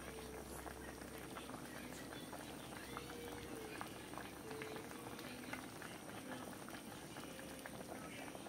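Patin fish curry bubbling in a wok on the stove, a busy run of small pops and blips from the thick sauce at the boil.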